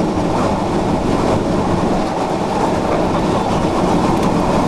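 Tornado winds rushing over a storm-chase vehicle, heard from inside it: a loud, steady, rumbling din with no let-up.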